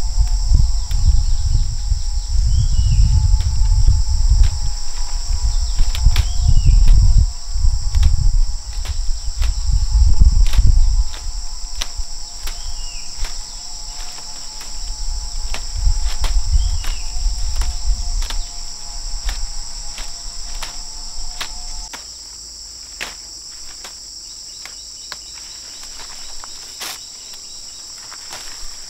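Insects droning in a steady, high-pitched chorus, with a low rumbling noise that is loud for the first ten seconds or so and returns more faintly later, and scattered light clicks.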